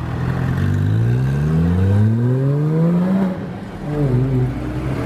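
Porsche flat-six engines pulling away: a 911 GT3 accelerates with a steadily rising note for about three seconds, then drops off, and a Cayman's engine comes past about four seconds in.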